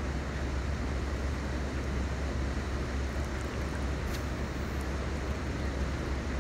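A steady low rumble with a constant hiss over it, and a brief faint high squeal about four seconds in.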